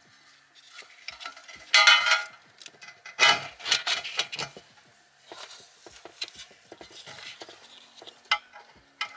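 Hands working among air suspension parts around a chrome air tank and compressors: irregular clicking, clinking and scraping, with a short squeaky scrape about two seconds in and a louder rattling clatter around three to four seconds in.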